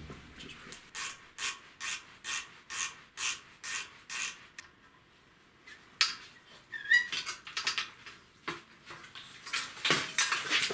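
Hand ratchet wrench clicking in a steady rhythm, about two strokes a second, for roughly eight strokes, then a pause and a series of irregular clicks and light taps.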